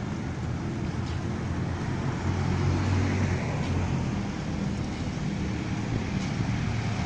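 Small motorcycle engine running steadily while riding, with a low drone and road and wind noise around it.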